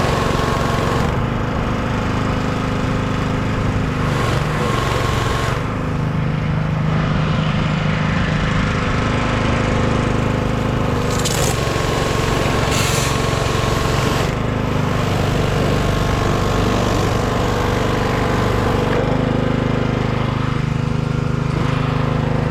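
Small gas engine of a Simpson 3100 PSI pressure washer running steadily, with its pitch shifting slightly now and then and a high hiss of spray that comes and goes.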